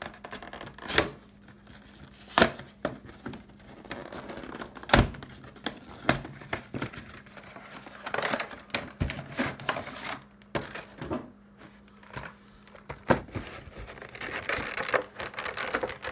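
A cardboard collector box being handled and opened and its clear plastic blister tray pulled out: scattered sharp knocks and taps of the box and tray against the counter, with crinkling of cardboard and plastic.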